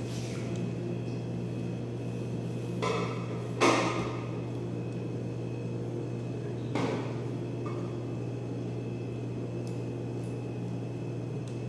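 Objects knocking and clattering on a worktable as it is tidied: three short knocks, the loudest about three and a half seconds in, over a steady low electrical hum.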